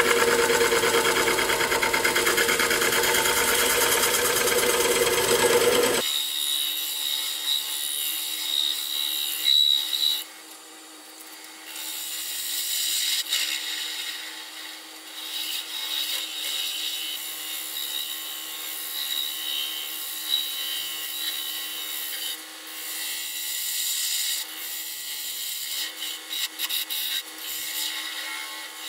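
Wood lathe spinning a snakewood bowl while a hand-held turning tool cuts and scrapes its base, a steady scraping noise over the lathe's hum. About six seconds in the sound changes abruptly, losing its low end and becoming thinner and quieter, with a steady high whine and rising and falling scraping.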